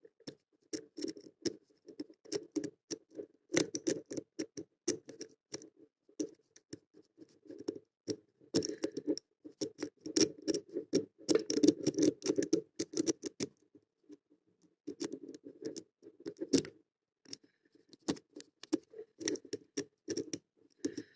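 Metal tickler pick jiggling and raking across the pins inside a brass padlock's keyway under heavy tension-wrench pressure: rapid, irregular clicking and scraping in bursts, with a couple of short pauses.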